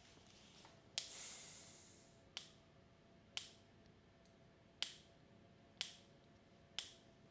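Footsteps on a hard classroom floor: six faint, sharp taps about a second apart, the first followed by a brief hiss.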